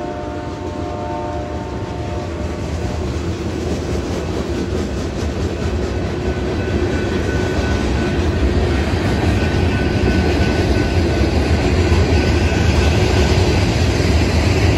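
Freight cars of a BNSF manifest train rolling past, a steady rumble and clatter of steel wheels on rail that grows louder. A held chord of tones fades out about two seconds in, and a thin steady high tone comes in about six seconds in.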